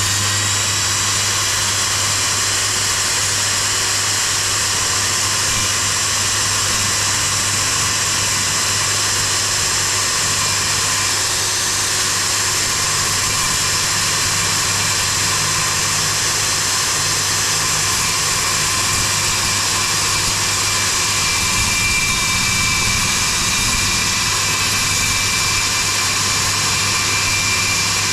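Electric power saw running steadily as it cuts plywood for a boat transom.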